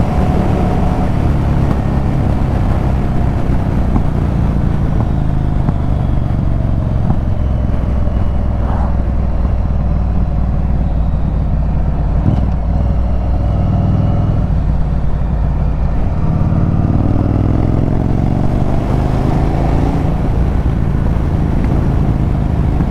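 Yamaha Virago 1100's V-twin engine and exhaust running under way on the move. The engine note slowly drops, then rises steadily about two-thirds in as the bike accelerates.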